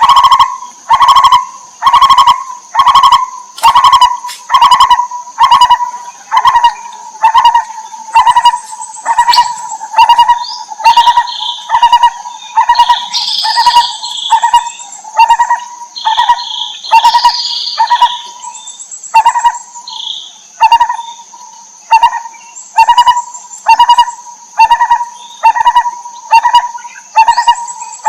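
Lineated barbet calling a low, mellow note repeated about once a second, over a steady high-pitched insect drone. Scattered higher chirps come in the middle.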